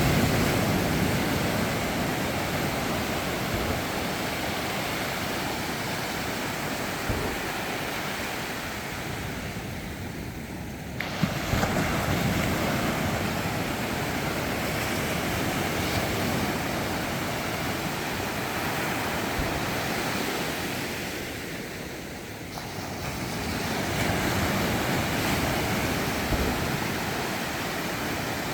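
Sea waves breaking and washing up the shore: a continuous surf that swells and eases, with a fresh wave breaking about 11 seconds in and another about 23 seconds in.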